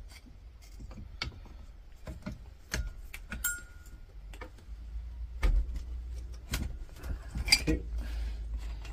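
Slip-joint pliers clicking and clinking on a brass fitting of a CO2 fire extinguisher's valve as it is worked loose. Scattered sharp metallic clicks come throughout, one with a brief ring about three and a half seconds in, and a louder cluster comes near the end.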